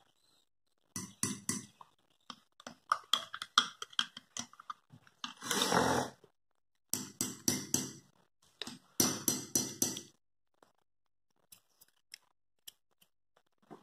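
Spoon stirring coffee in a mug, clinking rapidly against the sides in three bouts, with a brief louder rustle about five and a half seconds in.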